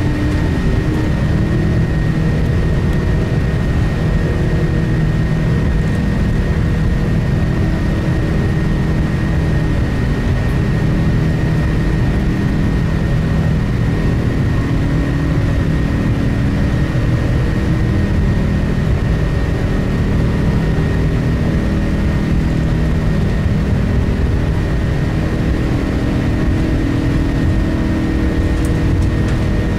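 Cabin noise inside an Airbus A380-800: a steady, loud rumble of the engines and airflow, with a few steady tones over it.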